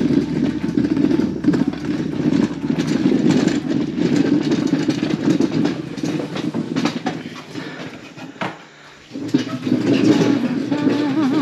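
Footsteps of a person walking over a gravel drive and on into a barn aisle, with a steady low hum that stops about halfway through.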